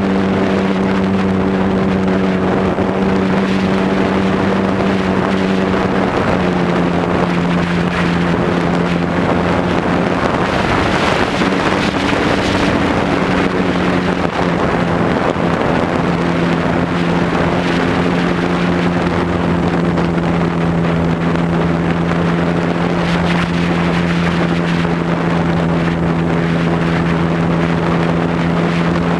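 A radio-controlled Cub model airplane's motor and propeller running steadily, heard from the onboard camera, with its pitch stepping down slightly about six seconds in and again around fourteen seconds as the throttle eases. Wind rushes over the camera microphone throughout, strongest around the middle.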